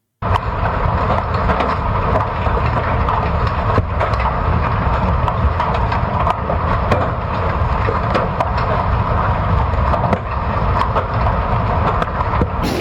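Heavy hail coming down hard: a steady, dense clatter of countless ice stones striking, with sharper single hits standing out all the way through.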